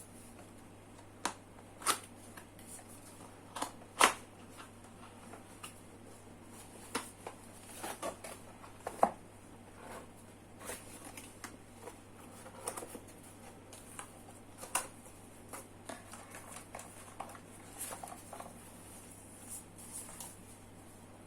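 Scattered clicks, knocks and short rustles of a mechanical keyboard and its packaging being handled, irregular rather than a steady typing rhythm, with a few sharper clicks in the first four seconds and softer rustling after.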